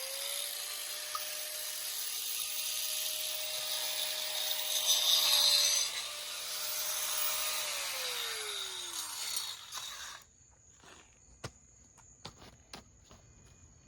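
A power tool running with a hiss of cutting noise over a steady motor whine. About eight seconds in the motor winds down and stops, leaving only a few faint clicks.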